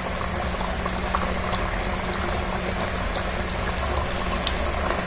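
Chicken gravy boiling in a clay pot (mann chatti): a steady bubbling hiss with small scattered pops and a faint low hum underneath. The gravy is bubbling down as its water cooks off around the now-tender chicken.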